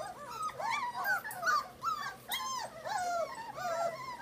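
A litter of young puppies whining and yelping all at once, many short rising-and-falling cries overlapping several times a second. They are hungry, crying for their dinner just before feeding.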